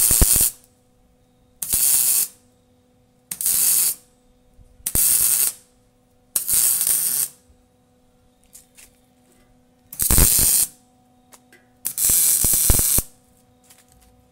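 Welding on an exhaust pipe in short bursts: seven crackling, sizzling runs of about half a second to a second each, laid as stitch welds to close exhaust leaks.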